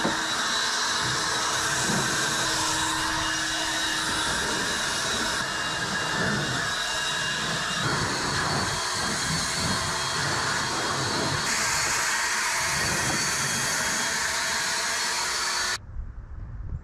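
Battery-powered leaf blower running steadily, a loud even rush of air with a faint motor whine, cut off abruptly near the end.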